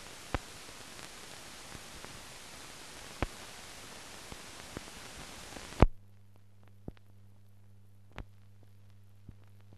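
Steady hiss with scattered clicks and pops from the blank soundtrack of a silent newsreel film. About six seconds in, a loud pop; the hiss then drops to a fainter low hum with a few more clicks.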